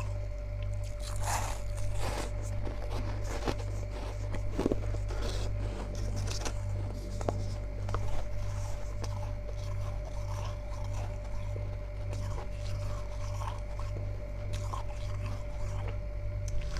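Chunks of freezer frost being bitten and chewed: irregular crisp crunches and scrapes over a steady low hum.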